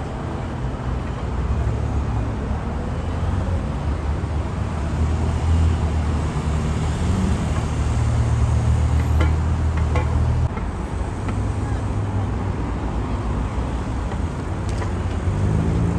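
City street traffic noise: a steady low rumble of passing cars, rising a little in the middle and easing again.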